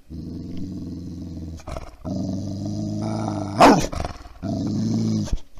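Dog growling in long, low rumbles broken by short pauses, with one sudden, louder snarl about three and a half seconds in.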